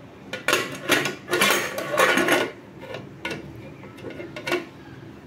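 Stainless steel pressure cooker lid being fitted and closed: metal scraping and clanking for about two seconds, then two lighter metal clicks.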